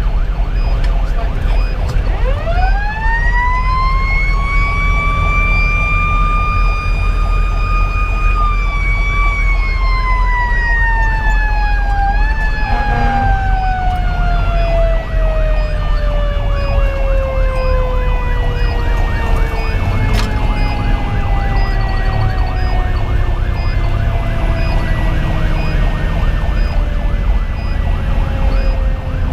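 Fire engine's Federal Q2B mechanical siren spinning up about two seconds in to a high wail, holding it briefly, then slowly winding down in pitch as it coasts. Heard from inside the cab over the steady low drone of the diesel engine and road noise.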